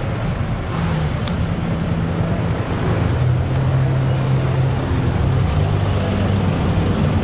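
City street traffic: motor vehicle engines running close by in slow, congested traffic, with a steady low engine drone through most of it.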